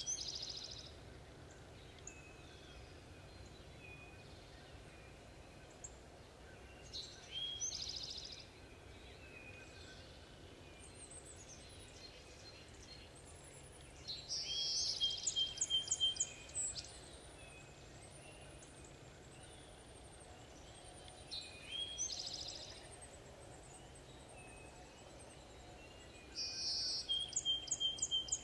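Songbirds singing in spring woods: a high, fast trilled song repeated every several seconds, the longest and loudest phrase about halfway through, with a few thin whistled notes between, over a low steady background rumble.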